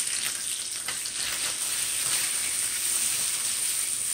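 Catfish pieces in teriyaki marinade frying in oil in a titanium ceramic square pan, sizzling steadily with a few small crackles.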